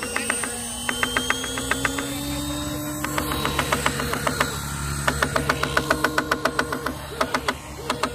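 Homemade machine-gun sound effect on an RC Spitfire model, firing in several bursts of rapid rattling shots at about eight a second. The model's motor hums steadily underneath.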